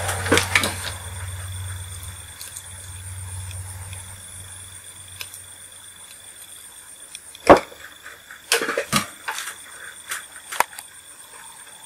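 Hand soldering and handling of an LED bulb's circuit board. A steady low hum fades out about halfway through, then comes a handful of sharp clicks and taps, the loudest about seven and a half seconds in.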